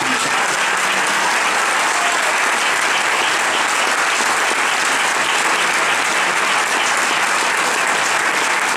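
Audience applauding steadily, with a dense, even clapping.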